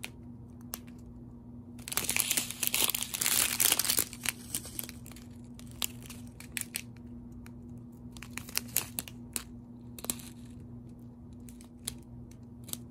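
Clear plastic bags of diamond painting drills crinkling as they are handled, loudest in a dense burst about two seconds in, then short scattered crackles, over a steady low hum.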